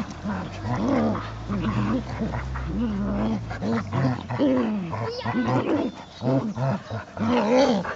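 Greater Swiss Mountain Dog puppy play-growling at its mother in a rapid string of short growls that rise and fall in pitch, while the two tug at a toy.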